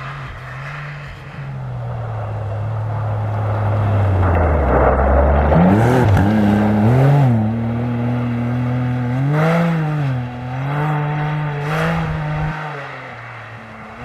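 Rally-raid car's engine approaching and passing, loudest about five seconds in with a rush of tyre noise. It then revs up and down several times through gear changes as it pulls away, fading near the end.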